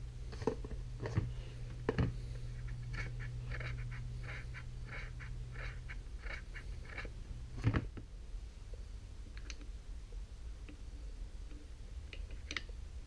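Light metal clicks and taps of small two-stroke engine parts being handled and fitted into a motorcycle side case cover, with a quicker run of light ticks in the middle and one louder knock a little past halfway. A steady low hum sits underneath and drops lower about halfway through.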